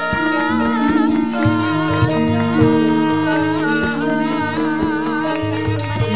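Javanese gamelan ensemble playing: bronze metallophones sound long ringing notes that step through a melody, with drum strokes and a wavering high melodic line above.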